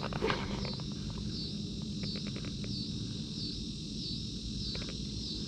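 Insects calling in a steady pulsing chorus, a high buzzy pulse about three times every two seconds, with a short run of light clicks about two seconds in.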